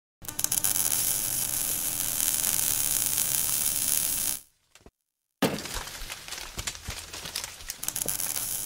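Crackling, hissing burn sound effect accompanying an animated logo being seared into wood: a dense sizzle for about four seconds, a short break, then sparser crackles and clicks.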